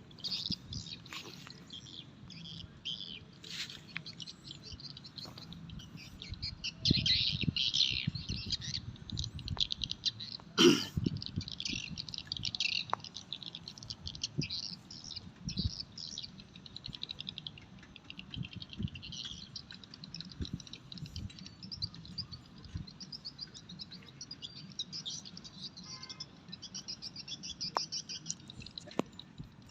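Many small birds chirping continuously, with scattered low thuds and one sharp knock about ten seconds in.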